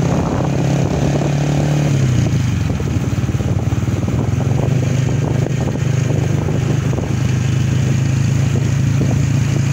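A motor vehicle's engine running steadily close by, dropping a little in pitch about two seconds in.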